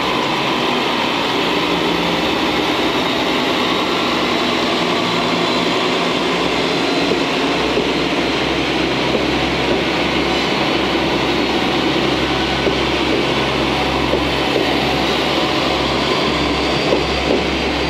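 JNR KiHa 40-series diesel railcars (KiHa 40 and KiHa 47) moving slowly past, their diesel engines running steadily over rail noise, with a few short wheel clicks near the end.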